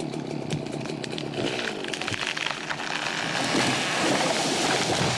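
Two-stroke chainsaw cutting into a larch trunk, the engine running under load with its pitch wavering and growing louder in the second half. The sawyer finds the chain not quite sharp.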